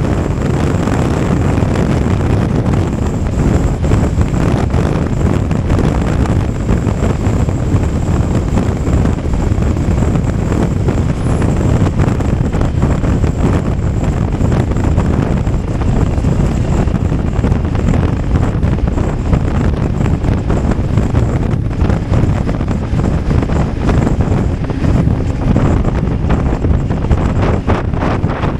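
Wind rushing over the microphone of a motorcycle at riding speed: a loud, steady roar heaviest in the low end, with no breaks.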